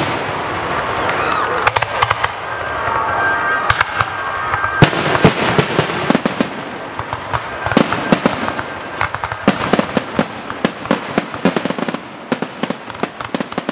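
Aerial firework shells bursting overhead in a fireworks finale: loud, sharp bangs in rapid, overlapping succession, heard close to the launch site, with the bangs thinning out a little near the end.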